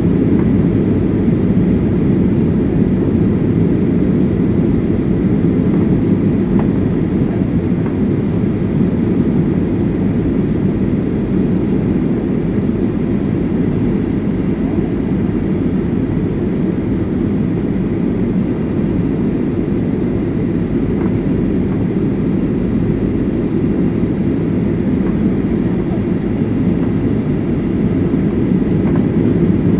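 Steady low rumble of an airliner's engines and airflow heard inside the passenger cabin.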